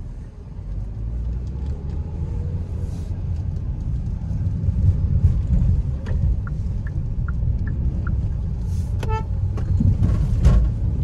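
Hyundai Exter's 1.2-litre four-cylinder petrol engine and tyre noise heard from inside the cabin as the car pulls away and gathers speed in automatic Drive. A low steady rumble grows louder about a second in, and a brief higher-pitched sound comes about nine seconds in.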